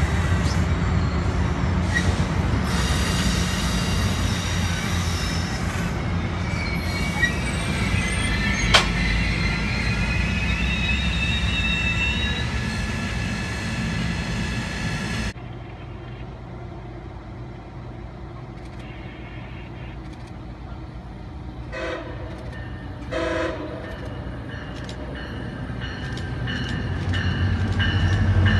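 Commuter train rolling past with a steady rumble of wheels on rail and high wheel squeal that rises in pitch. About halfway through the sound drops off abruptly to a quieter rumble. Two short horn toots follow, then an approaching diesel locomotive grows louder near the end.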